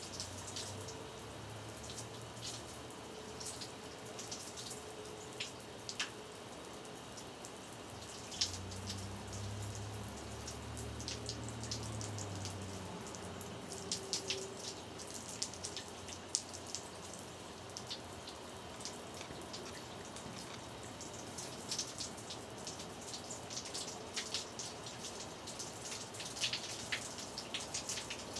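Water running and dripping, a steady splashing hiss with many scattered sharp drip-like ticks; a low rumble comes and goes from about eight to twelve seconds in.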